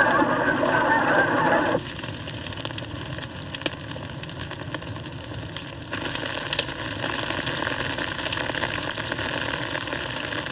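A flock of Canada geese honking and splashing as they take off from water, cut off abruptly about two seconds in. Then comes a steady hiss with scattered crackles from burning grass, louder from about six seconds in.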